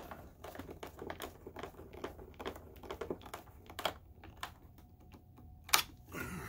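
Small hand screwdriver driving a screw into the underside of a projector housing: a quick, irregular run of light clicks and scrapes as it turns, with one sharper click near the end.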